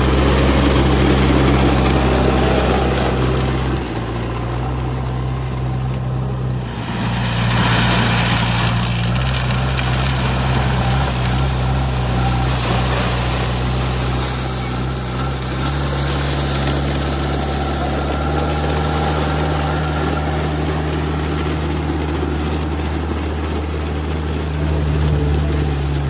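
JCB 3DX backhoe loader's diesel engine running steadily at low speed, its pitch shifting slightly a few times. Two brief hissy rushes rise over it, about seven seconds in and again about halfway.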